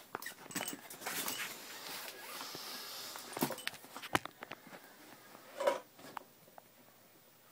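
Rustling and knocking from a phone being handled close to its microphone, with several sharp clicks and a brief louder sound about three quarters of the way in.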